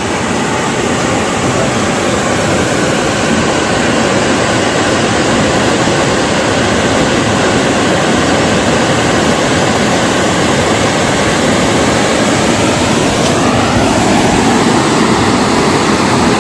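Muddy river rapids rushing over rocks and boulders below the bridge, a loud, steady roar of water.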